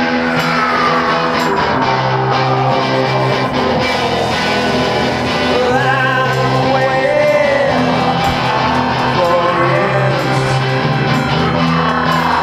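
Dark synth-punk band music: drums keep a steady beat under held bass and organ notes and guitar. A tone slides slowly down and back up in pitch, twice.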